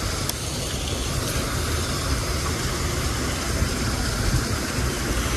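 Steady rushing of water pouring over a small spillway, an even hiss over a low rumble.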